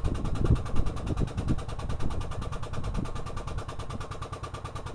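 A motor running steadily with a rapid, even pulse and a steady hum, with a few low rumbles in the first second and a half.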